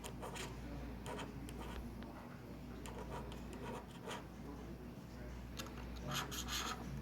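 Short, irregular scratching and rubbing strokes of a small hand tool working over an iPad mini's frame, clearing out leftover adhesive and fuzz. A low steady hum runs underneath, and the strokes come thicker near the end.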